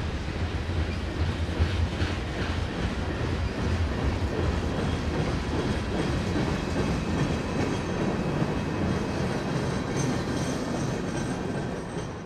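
Norfolk Southern freight train rolling past: a steady rumble and clatter of freight-car wheels on the rails as the tank cars and the last car drift downgrade, dropping away at the very end.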